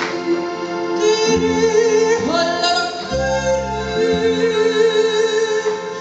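Women's voices singing a Tyrolean folk song into microphones, accompanied by an accordion whose low held bass notes change in steps beneath the melody.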